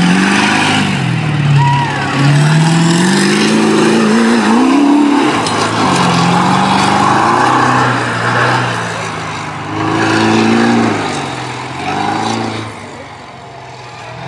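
Lifted pickup mud truck's engine revving hard, its pitch rising and falling again and again as it is driven over dirt hills. It fades in the last couple of seconds as the truck pulls away.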